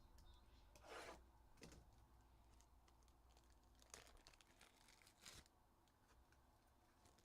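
Faint crinkling and tearing of trading-card packaging, with a few soft handling clicks, as card packs are opened.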